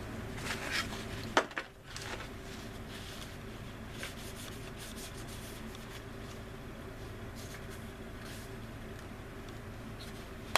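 Resin model-kit parts handled and pressed together during a dry fit: light rustles and taps, with one sharp click about a second and a half in, over a steady low electrical hum.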